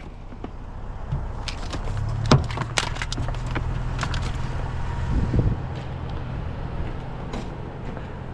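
Electrical cords and their plugs being pushed into a plastic tote, giving scattered clicks, knocks and rustles. A vehicle engine runs with a steady low hum under them from about two seconds in.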